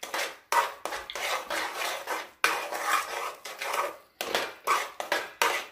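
Metal spoon stirring and scraping thick semolina kesari around a frying pan in repeated strokes, about two a second, as the sugar melts into the cooked rava.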